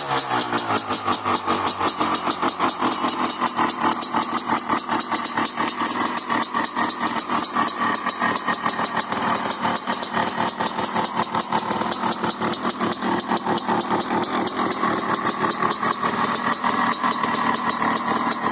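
1995 Honda CR500R's single-cylinder two-stroke engine running. Its revs drop back right at the start, then it idles with a fast, slightly uneven beat.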